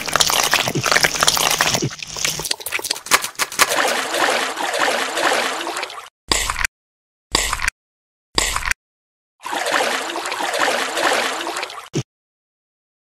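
Wet, watery sound effects, as added in stop-motion ASMR: a long stretch, three short bursts about a second apart, then a second stretch that cuts off about a second before the end.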